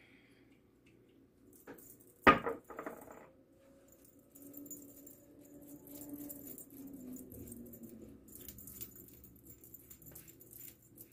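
Small handling sounds of makeup being put on: one sharp click about two seconds in, followed by a few quicker ticks, then soft rubbing with light jingling of bangle bracelets on the moving wrist.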